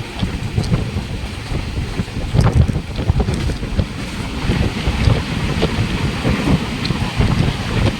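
Wind buffeting the microphone over the low rumble of a moving train, with scattered clicks and knocks.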